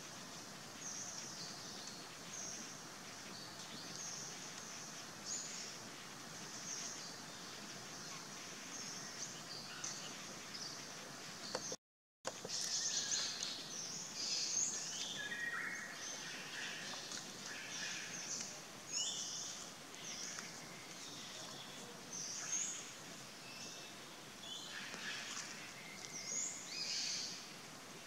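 Forest ambience: many short, high bird chirps and calls, some gliding up or down, over a steady hiss, with a brief dropout to silence about twelve seconds in, after which the chirping grows busier.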